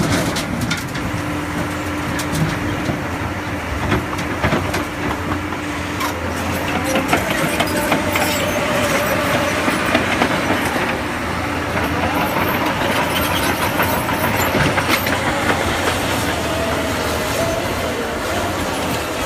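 Heavy earthmoving machine working: a steady diesel drone with pitch that rises and falls, overlaid by repeated metallic clanks and squeals.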